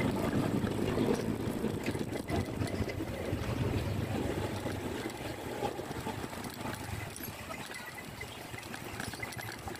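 Small motorcycle engine running steadily at low speed, heard from the rider's own machine while it rolls through a narrow street.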